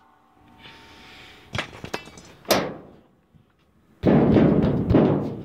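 A fist thumping down on a closed sheet-metal car hood: a few sharp knocks and clicks, then a loud run of thuds near the end, testing that the latched hood sits secure.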